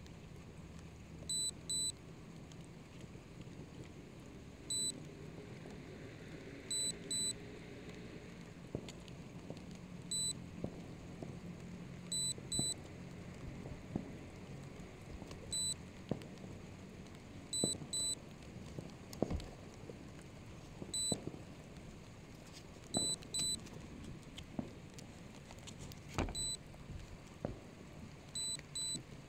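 Low-voltage warning beeps for an SJRC F11S 4K Pro drone: short, high electronic beeps, mostly in pairs, repeating every one and a half to three seconds. A few faint knocks sound in between.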